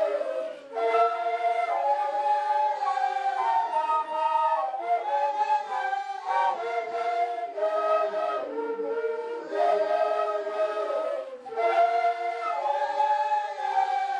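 A troupe of quena-quena flutes (long end-blown Andean flutes) playing a tune together, several flutes moving in step in parallel lines, with brief breaks between phrases.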